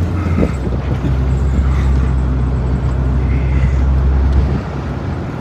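Roofless BMW 535xi wagon driving on the road: a steady low engine drone with road and wind noise, easing off a little near the end.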